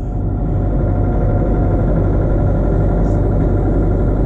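Backhoe's diesel engine running steadily at working revs, an even drone that holds constant throughout.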